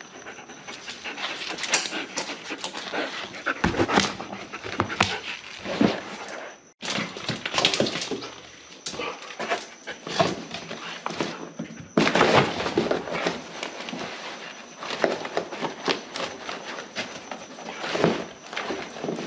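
German shepherd tearing and rummaging in a cardboard box: irregular scraping, crinkling and ripping of cardboard, with the dog panting.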